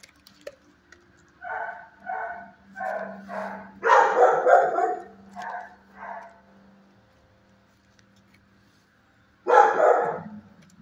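Dogs barking in a shelter kennel block: a run of separate barks, a louder flurry of overlapping barks, a pause, then another loud burst near the end.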